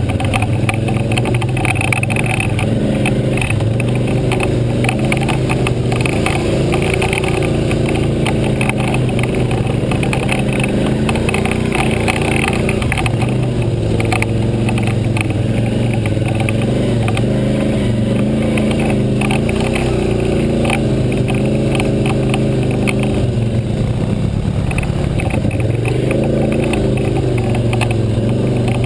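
ATV engine running under way on a rough dirt trail, heard from on the machine, its pitch rising and falling with the throttle, with many short knocks and rattles from the bumps.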